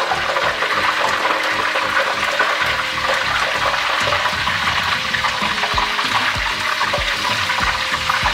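Butter sizzling in hot frying oil in a pan on a gas stove, a steady dense crackling hiss.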